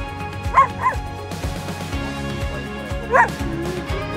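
Shepherd-type dog giving short, high play barks: two quick ones about half a second in and another about three seconds in, a bid to get the other dog to play. Background music plays throughout.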